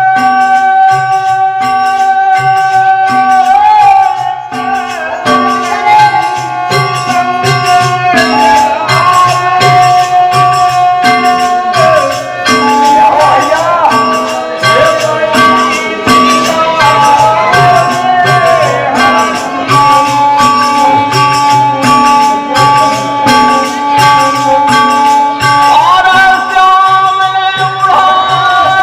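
Birha folk music: a harmonium holding long notes over a steady drum beat and the jingle of hand cymbals and wooden clappers, with a man singing through the middle part.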